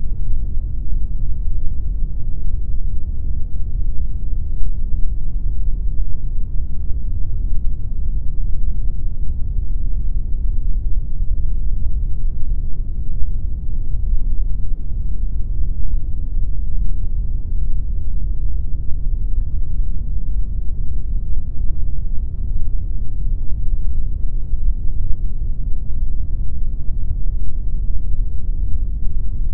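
Synthetic pink noise: a steady, even hiss-like rush with no tones or events, weighted strongly toward the low end and fading out above about 2 kHz.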